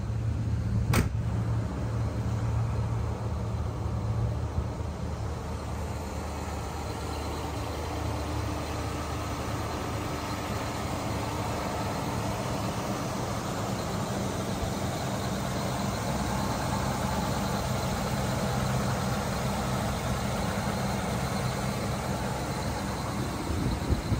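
1978 Cadillac Coupe DeVille's V8 engine idling steadily, with a sharp click about a second in.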